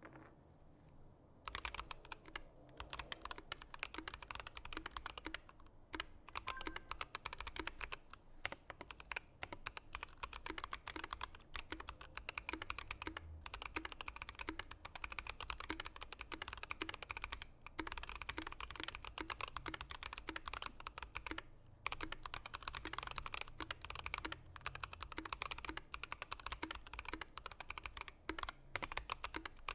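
Typing on a Skylong GK96s mechanical keyboard with Gazzew Boba U4T tactile switches and PBT keycaps: a dense stream of key clacks that starts about a second and a half in, broken by a few brief pauses.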